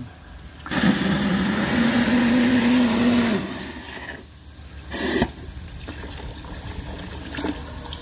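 Penberthy lifting steam injector being started: steam rushes out loudly for a few seconds with a low hum in it that steps up in pitch, then drops to a quieter steady hiss with one short spurt, as the injector picks up water from the bucket and starts feeding the boiler.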